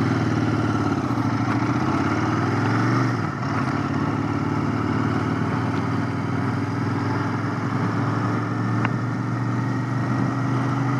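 Royal Enfield Continental GT 650's 648 cc parallel-twin engine running under way. Its pitch climbs through a gear, then drops at a shift about three seconds in, and it runs steady after that.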